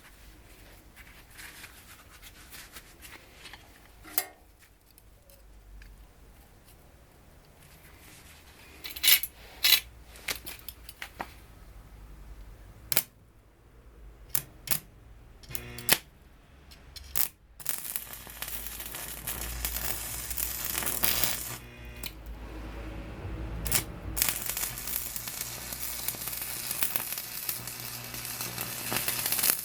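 Arc of a 100V constant-voltage wire-feed welder: scattered sharp pops and clicks at first, then a steady crackling sizzle of continuous welding from a little past halfway, stopping briefly twice.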